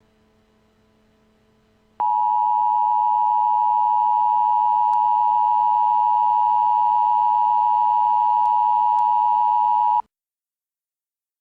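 Emergency Alert System attention signal: the two-tone 853 Hz and 960 Hz alert sounding as one steady, unwavering tone. It comes in suddenly about two seconds in, holds for about eight seconds and cuts off abruptly.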